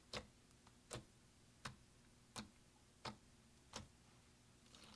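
Fingertips poking into soft shimmery slime, each poke giving a short sticky pop or click; six evenly spaced pops, about one every 0.7 seconds.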